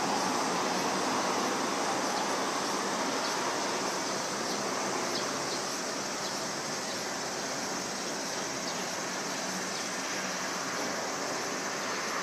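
Distant jet noise from the twin turbofan engines of a Fuji Dream Airlines Embraer regional jet climbing away after takeoff: a steady, even rush.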